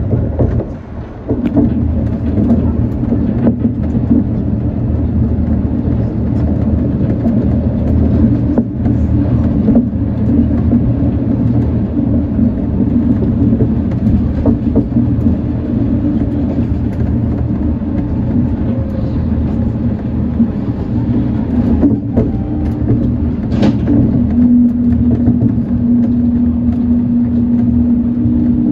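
Shonan Monorail 5600-series suspended monorail car running along its track beam, heard from the front cab: a steady low rumble from the car and its rubber-tyred bogies. A steady hum joins in about three-quarters of the way through.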